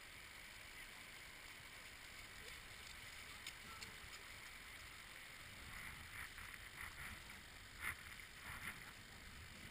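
Faint, steady wash of small surf waves running up a flat sandy beach. Near the end come a few short splashes from wellington boots in wet sand and shallow water.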